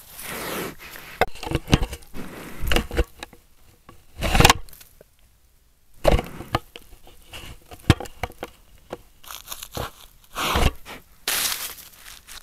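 Eurasian brown bear rubbing its fur against the camera housing at close range. Irregular scraping and rustling comes in bursts, with several sharp knocks as the bear pushes and bumps the camera.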